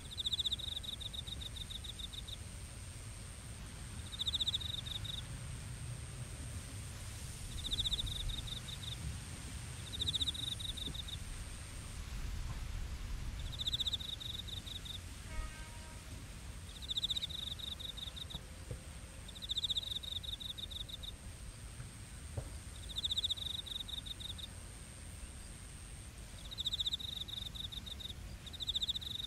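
Crickets chirping: pulsed chirp runs about a second long come every three seconds or so, over a steady high-pitched insect trill and a low rumble.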